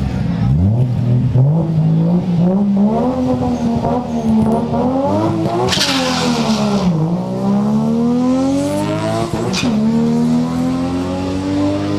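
A drag car's engine revving at the start line, then launching down the strip. The revs climb in steps, a loud rush comes as the car passes close about six seconds in with the engine pitch dropping, and the engine note rises again as it pulls away.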